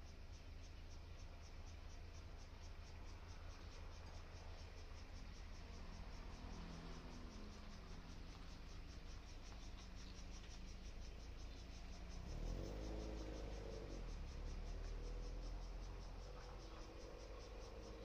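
Faint outdoor ambience of insects chirping in a steady, rapid pulse of about four a second over a low rumble. A louder low droning sound rises about twelve seconds in and comes back near the end.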